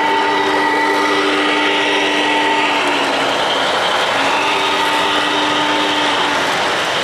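O-gauge model steam locomotive's sound system blowing a chime steam whistle in two long blasts, the first about three seconds long and the second about two seconds, starting about four seconds in. Underneath is the steady running noise of the train on the track.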